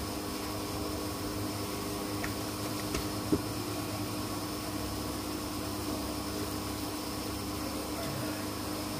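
A steady machine hum with several held tones over a low rumble, with a faint click about two seconds in and a sharper one about three seconds in.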